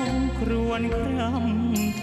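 A man singing a Thai ballad into a microphone over a band accompaniment, holding long notes with vibrato and sliding between pitches.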